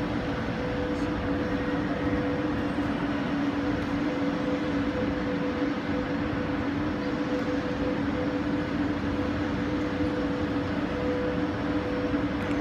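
Steady background din of a large railway station hall, with a constant mechanical drone holding two steady tones and no changes or sudden events.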